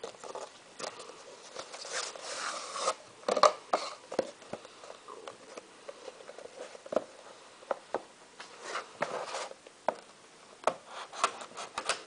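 A trading-card box and its packaging being handled: wrapper crinkling and cardboard rustling, with many short clicks and taps.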